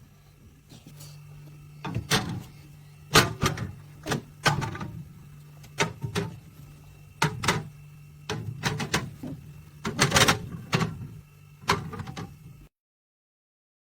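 A series of sharp knocks and clatters, about a dozen spread over ten seconds, over a low steady hum. The sound cuts out abruptly near the end.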